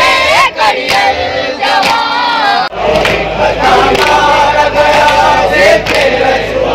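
A male reciter singing a noha (Shia lament) with a wavering voice, then, after a sudden cut a little before halfway, a crowd of men chanting it together. Sharp slaps of matam, hands striking chests, come through the chanting.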